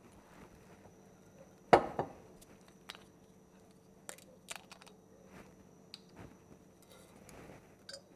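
Kitchen items being handled on a stone countertop. A sharp knock comes about two seconds in, then a few light clicks and taps as a plastic cap is twisted off a glass vinegar bottle and set down.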